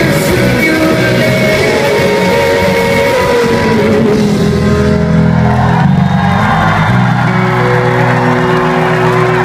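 Rock band playing live in a large hall: electric guitars and bass, with long held bass notes and sustained chords from about halfway through.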